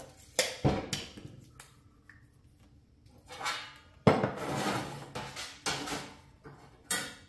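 Clattering and sharp knocks of a sheet of 16-gauge steel and hand tools being handled and set down on a bench, a few separate hits with short rustling noises between them; the sharpest knock comes about four seconds in.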